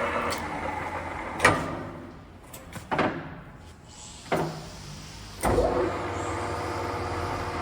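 Cadillac gap bed engine lathe running, then shut off and coasting down, with several sharp metallic clunks of its levers being shifted; near the middle the motor starts again and the lathe settles back into steady running.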